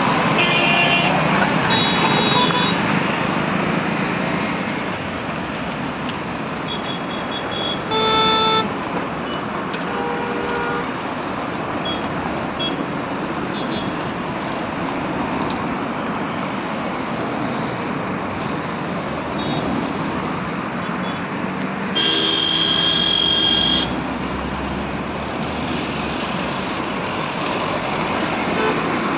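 Congested highway traffic: cars, trucks and motorcycles passing slowly with steady road noise. Vehicle horns honk several times, a short blast about a third of the way in and the loudest, a horn held for about two seconds, about three quarters of the way through.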